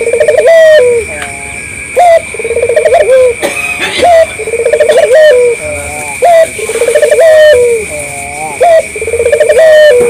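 Barbary dove (puter) cooing over and over: a short, sharp rising note followed by a longer rolling, purring coo. The phrase repeats about every two and a half seconds.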